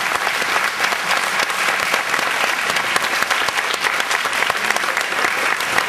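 An audience applauding: many people clapping together, steady and dense, starting to fade near the end.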